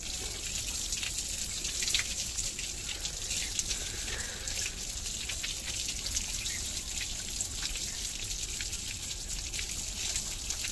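Water pouring from a wall tap over someone's head as he rinses his hair by hand, splashing onto a concrete floor: a steady rush of running water with many small irregular splashes.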